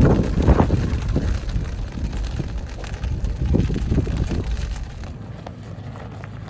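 Low, uneven rumble of a Toyota 4Runner driving a rough off-road trail, with wind buffeting the microphone in gusts. It quiets and steadies about five seconds in.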